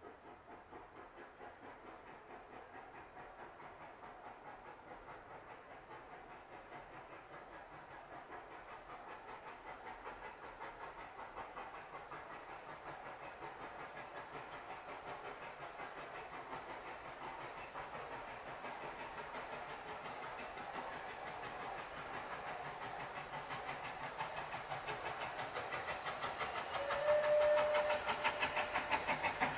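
Steam locomotive approaching and growing steadily louder, with a rapid rhythmic beat. A brief whistle note sounds near the end.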